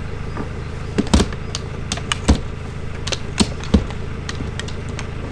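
A steady low mechanical hum, with a handful of sharp knocks and clicks over it, the loudest a little after two seconds in.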